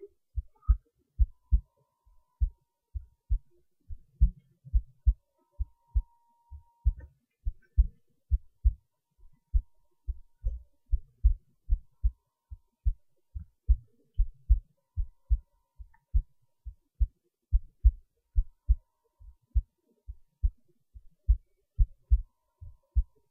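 Heartbeat recorded close up: low, dull thumps in steady lub-dub pairs, a little more than one beat a second.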